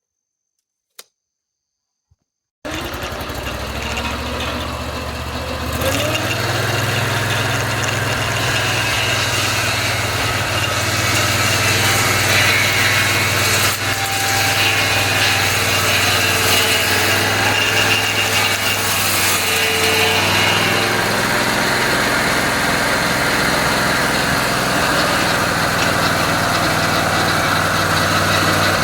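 A band sawmill's small petrol engine starts abruptly from quiet and runs steadily. A few seconds in it speeds up and keeps running at the higher speed.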